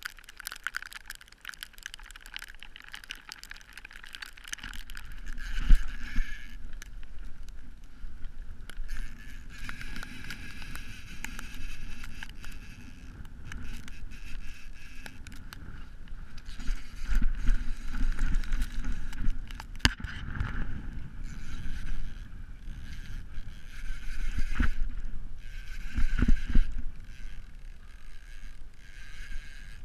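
Hobie Outback kayak moving through water: a continuous wash of water against the hull, with wind rumbling on the microphone and a few sharp knocks.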